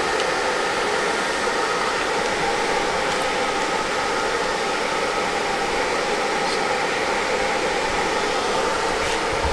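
A blower running steadily: an even rushing noise with a faint hum.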